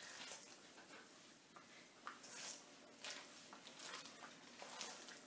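Faint, irregular squishing and scraping of a spatula folding thick buckwheat-flour muffin batter with stewed apple pieces in a stainless steel bowl.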